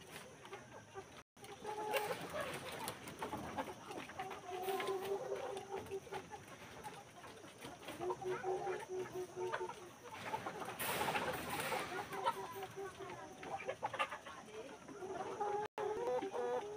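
A flock of chickens clucking and calling, many short overlapping calls, with a brief burst of rustling noise a little past the middle.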